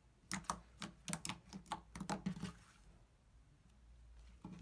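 Yellow butter slime being pressed and spread by fingers on a tabletop, giving a quick run of soft crackling clicks, the crunch of the slime, for about two seconds, then going quieter as it is pulled and stretched.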